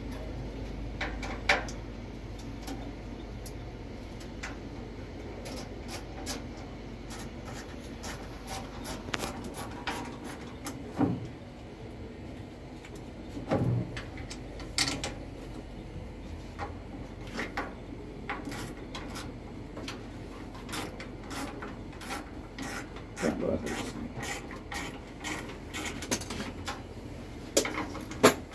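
Scattered clicks, knocks and rubbing of hands and tools on metal parts and plug connectors while a condensing boiler's fan is fitted and its wiring reconnected, with a few louder knocks now and then.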